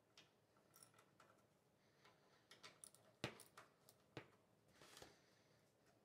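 Faint, irregular small metal clicks and taps of a socket wrench and coil bolts being handled while the ignition coil is fitted beside the flywheel, the sharpest about three seconds in.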